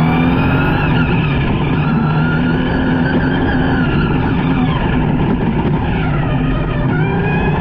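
Toyota Hilux rally truck's engine running hard at speed, its pitch rising and falling through the gears with a sharp shift about seven seconds in, over steady tyre and gravel noise from the dirt road.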